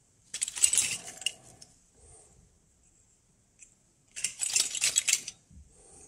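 Metal Geiger counter tubes clinking against one another as a hand rummages through a bagful of them, in two bursts: about half a second in and again about four seconds in.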